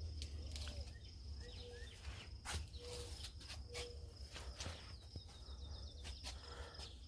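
A cricket chirping steadily in a high pitch over a low hum, with a few sharp clicks and knocks around the middle.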